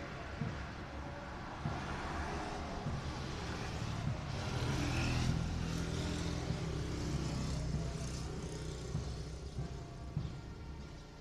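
A motor vehicle passing on the street over steady traffic rumble, its engine swelling to loudest about five seconds in and then fading away.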